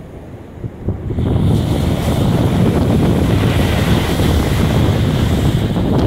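Strong wind buffeting the microphone over sea surf washing up a sandy beach; the wind noise swells up about a second in and stays loud and steady.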